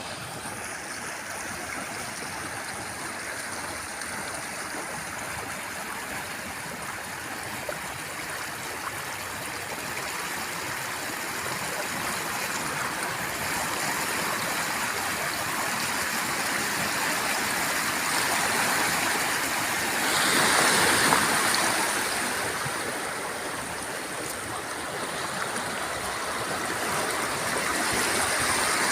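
A forest river running steadily, a continuous rush of water that slowly grows louder, with a brief louder surge about two-thirds of the way through.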